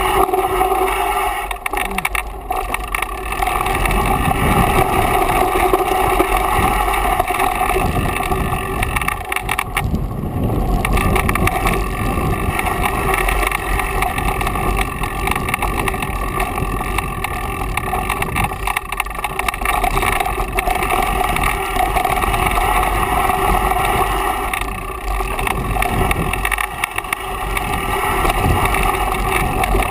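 Mountain bike descending a dirt singletrack, heard from a camera mounted on the rider or bike: a steady buzzing drone and rushing wind noise over an uneven rumble from the tyres and frame on the rough trail.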